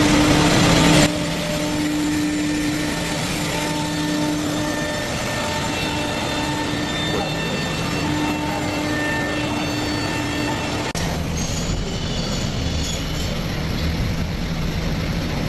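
CNC lock-hole and hinge machine running: a steady mechanical drone with several humming tones. It is louder for about the first second, then even, and the high hiss drops away about eleven seconds in.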